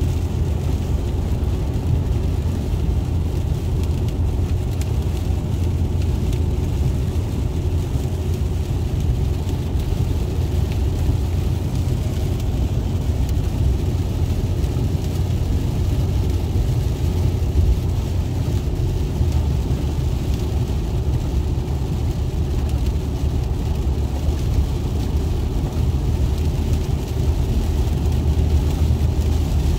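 Steady low rumble of a car driving at highway speed on a wet road, heard from inside the cabin: engine and tyre noise with no sharp knocks or changes.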